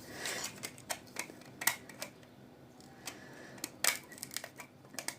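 Scattered small clicks and taps, about a dozen at irregular intervals, from phone parts and tools being handled as a phone is pried apart.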